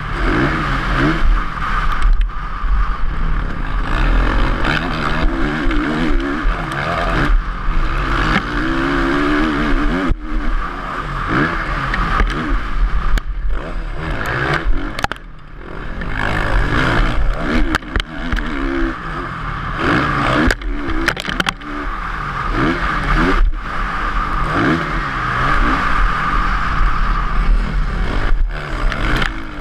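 On-board sound of a motocross bike's engine racing around a dirt track, its pitch rising and falling over and over as the rider revs out and backs off through corners and straights, with wind and chassis clatter mixed in and the sound briefly dropping out now and then.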